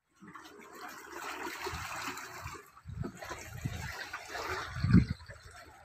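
Small sea waves lapping and trickling among granite boulders at the waterline, an even wash of water noise, with a few low thumps now and then, the strongest about five seconds in.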